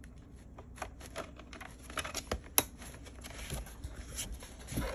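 Irregular small plastic clicks and taps from fingers handling a green SC fiber-optic connector at the port of a Bell Home Hub 4000 modem, with one sharper click about two and a half seconds in.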